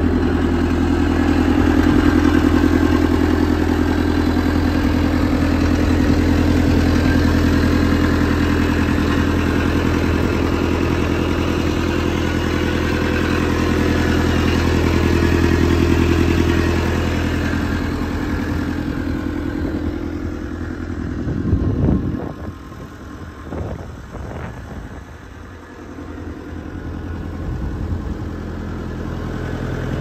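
Gehl 4625 SX skid steer's diesel engine idling steadily. The sound grows weaker and uneven about two-thirds of the way through, then builds back up near the end.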